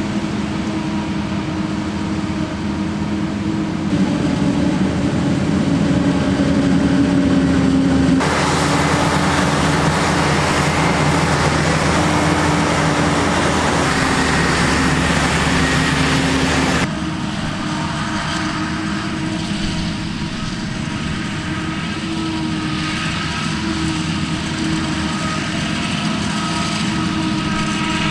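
John Deere 9800i self-propelled forage harvester's Liebherr V12 running under load while chopping maize: a steady engine note over a noisy rush of chopped crop. The mix changes abruptly twice, with a louder, hissier stretch through the middle.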